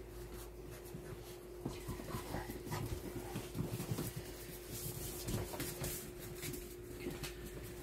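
Puppies playing on a hard floor: claws click and scrabble, with a few short high squeaks and whimpers, over a steady low hum.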